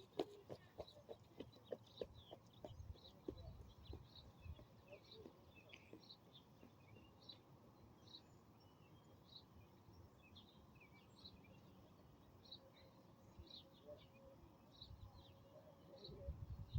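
Near silence outdoors: small birds chirping faintly and repeatedly, with a few faint clicks in the first few seconds.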